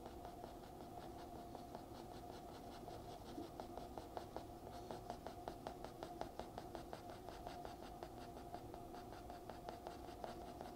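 Pencil scratching on paper in quick, short shading strokes, more frequent from about four seconds in, over a faint steady hum.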